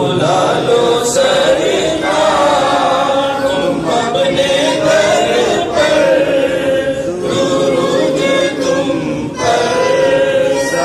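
A group of voices chanting an Urdu devotional salam to the Prophet in unison, unaccompanied, in long drawn-out phrases with brief breaks between them.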